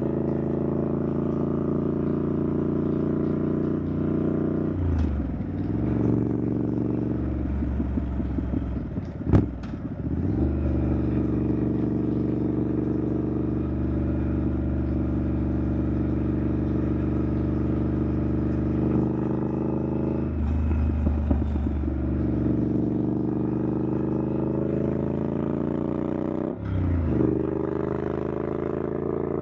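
Triumph Scrambler 900's parallel-twin engine through an aftermarket exhaust, running at cruising speed. The engine note drops and recovers a few times, around 5 s, 8–10 s, 21 s and 27 s, as the throttle and gears change. A single sharp knock about nine seconds in is the loudest sound.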